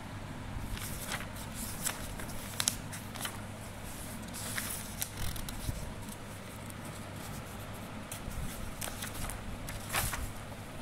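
Paper notebook pages being handled and turned by hand: scattered rustles and flicks, the loudest near the end as a page is flipped over, over a low steady hum.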